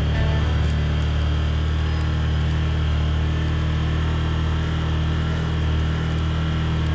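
Side-by-side UTV's engine running at a steady speed as it drives along, a constant low hum.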